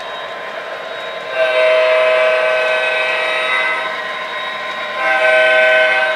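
Horn of an MTH Premier O scale Norfolk Southern SD50's Proto-Sound 3.0 sound system blowing twice, a long blast of about two and a half seconds and then a shorter one of about a second. Both blasts sound over the steady recorded running of the diesel engine.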